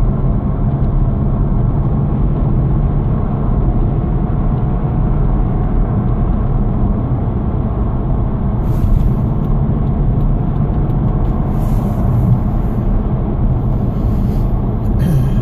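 Car cabin at motorway speed: a steady low rumble of tyre and engine noise, with a few brief swells of hiss.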